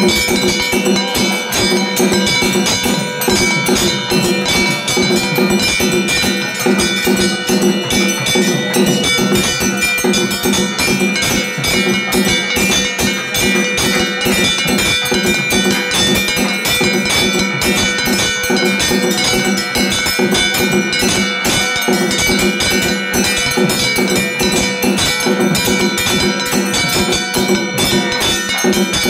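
Temple bells ringing continuously during a Hindu harathi (aarti), with rapid percussion struck over the held ringing tones.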